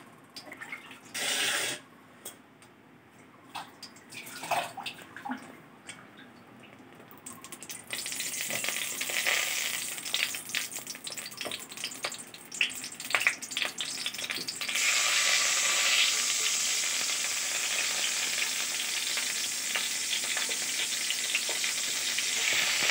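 Hilsa fish head frying in hot oil in a kadai: after a quiet start with a few light clicks, a crackling sizzle sets in about a third of the way in and turns louder and steadier about two thirds of the way through.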